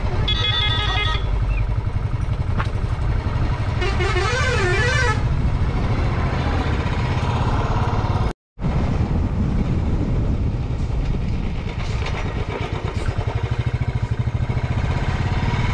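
Motorcycle on the move, with a steady low rumble of engine and wind throughout. A horn honks for about a second at the start, and a second, wavering tone follows about four seconds in. The sound drops out completely for a moment just after eight seconds.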